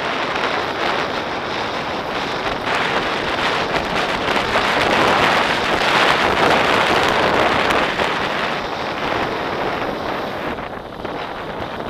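Wind rushing over the microphone of a camera riding on a mountain bike going fast downhill, mixed with knobbly tyres rolling and rattling over loose gravel. The rush swells loudest in the middle and eases toward the end.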